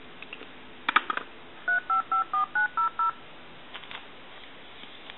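Touch-tone (DTMF) dialing: seven short two-tone beeps in quick succession, a seven-digit number keyed in, preceded by a few sharp clicks about a second in.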